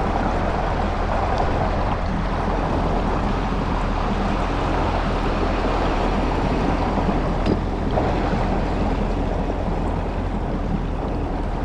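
Engine of a 2019 Yamaha GP1800R SVHO jet ski running steadily, with water and wind noise.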